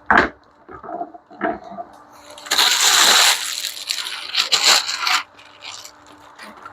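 Packaging rustling and wood chipper parts knocking as they are taken out of the box. There are a few knocks early on, a loud rustle of about a second near the middle and a shorter one a little later, over a faint steady hum.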